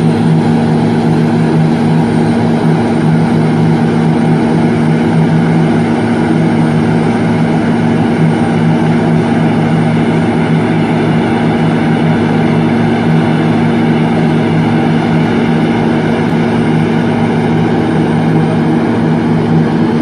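Slipform concrete paver working, a steady, unchanging machine drone with a strong low hum.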